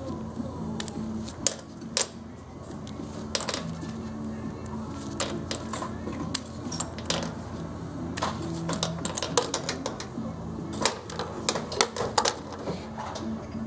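Quick, irregular metallic clicks and ticks as safety lockwire is threaded, twisted and trimmed with pliers around a fitting. Music plays underneath.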